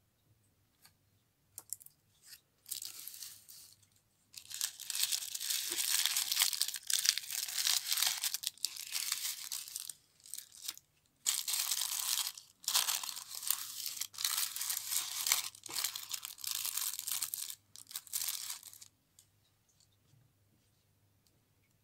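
Packaging being handled, crinkling and rustling in long clumps with short breaks, from a few seconds in until near the end.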